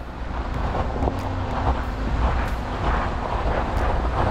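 Jeep Gladiator driving on a gravel trail: a steady low rumble of engine and tyres that grows louder over the first second.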